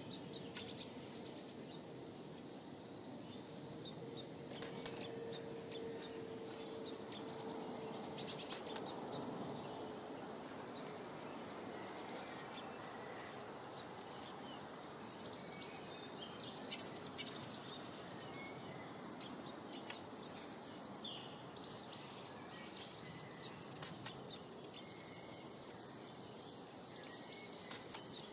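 Small garden songbirds chirping and singing, with many short, high calls overlapping throughout, over a steady background hiss. A faint steady hum comes in about four seconds in and fades out around ten seconds.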